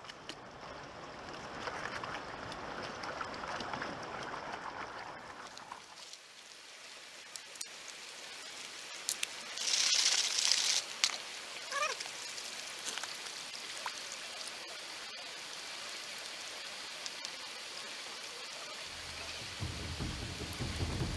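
Water sloshing and splashing in a plastic gold pan being dipped and swirled in a shallow river, over the steady sound of running water, with a louder splash about ten seconds in.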